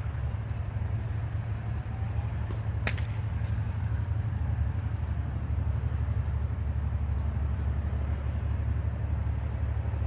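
A tennis ball is struck once by a racket, a sharp crack about three seconds in. Under it runs a steady low outdoor rumble.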